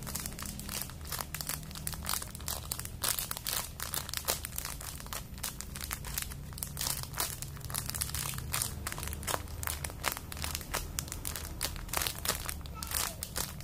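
Crinkling and crackling, many quick irregular crackles, as a unicorn squishy toy is handled in crinkly wrapping.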